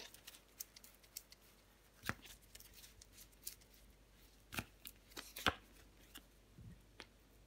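Tarot cards being drawn from the deck and laid on a wooden table: scattered light clicks and taps, the strongest about two seconds in and twice again around five seconds in.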